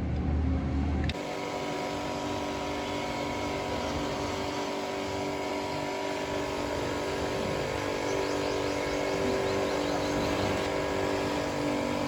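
A low rumble that cuts off about a second in, giving way to the steady hum of a running motor, several held tones over an even hiss.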